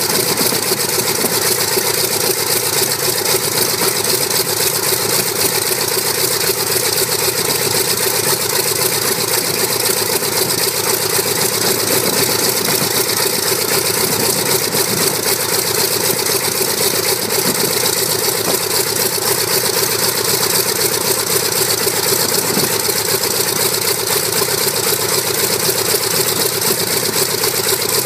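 Vought F4U Corsair's Pratt & Whitney R-2800 eighteen-cylinder radial engine idling steadily, loud and even, with the propeller turning.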